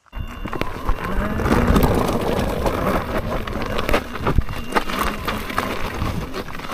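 KingSong S22 Pro electric unicycle being ridden off-road: a steady rumble of wind and tyre noise over rough ground, with frequent sharp knocks and rattles.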